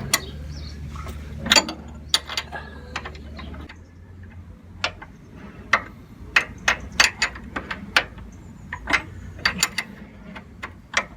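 Spanners clicking and clinking on nuts and bolts as they are worked loose, a run of sharp clicks at uneven spacing.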